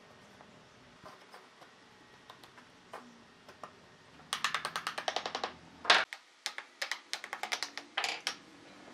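Quick runs of light, sharp clicks and taps, about ten a second, broken by one louder knock about six seconds in, with scattered clicks after it.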